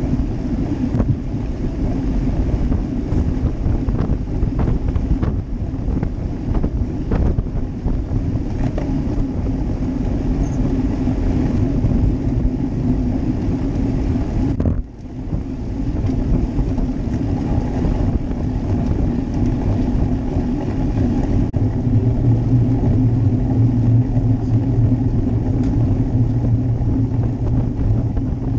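Wind buffeting the microphone of a GoPro Hero Session on a road bike riding in a peloton, over steady tyre and road noise. A steady low hum joins about two-thirds of the way through.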